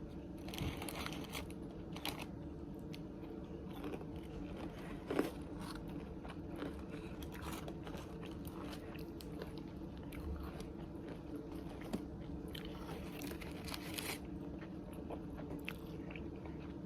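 Close-up chewing and biting of fried takeout wings and fries: soft, wet chewing with scattered crunches and small clicks, thickest a little after the middle, over a steady low hum.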